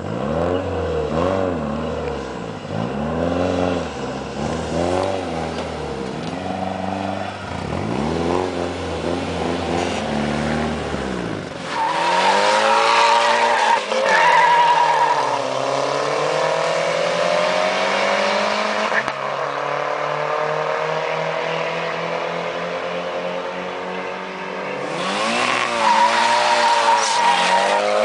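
Two street-drag cars, an older sedan and a station wagon, revving their engines over and over at the start line, each rev rising and falling about once a second. About twelve seconds in it turns louder, with engines held at high revs and a wavering tyre squeal from spinning wheels, which comes back near the end.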